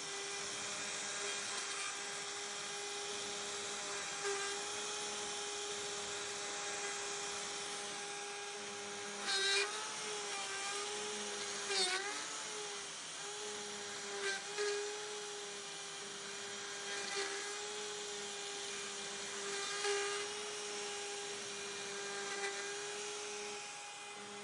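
CNC router spindle with a Whiteside 90-degree V-bit cutting wood: a steady high whine over a hiss. The whine dips briefly in pitch about five times, each time with a short louder spike.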